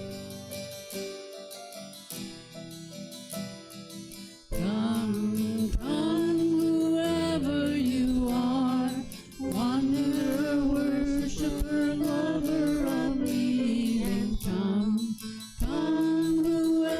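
Church gathering song: a soft plucked-sounding keyboard or guitar accompaniment alone, then a voice comes in singing about four and a half seconds in, holding long notes, with the instrument going on underneath.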